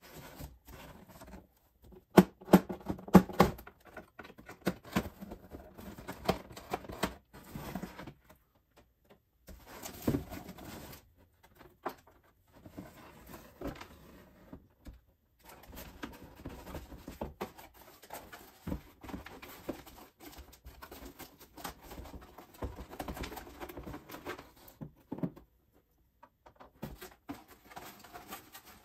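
Cardboard packaging being handled: the box, its inserts and a cardboard tray rustling, scraping and knocking as a large plastic toy jet is lifted out and set down. The sharpest, loudest knocks come about two to three seconds in, and the handling stops and starts with short pauses.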